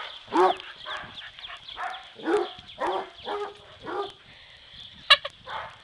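Dog barking repeatedly during play, about two short barks a second, then one sharper, louder bark about five seconds in.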